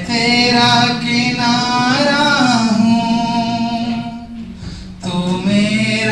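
A man singing unaccompanied, with long held notes that slowly bend in pitch; he breaks off for a breath about four and a half seconds in, then starts a new phrase.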